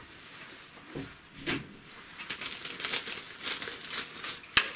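Plastic bag crinkling and rustling as a bunch of fresh herbs is pulled out of it: a couple of short rustles, then steady crackling from about halfway through, with one sharp click near the end.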